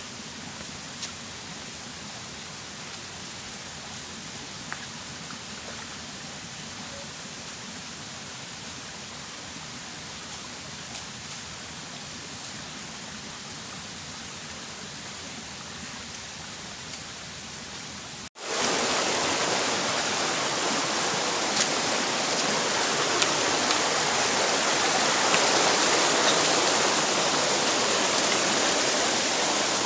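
Shallow rocky stream running between boulders: a steady rush of water. It becomes suddenly louder about two-thirds of the way through, close to the water where it spills over the rocks.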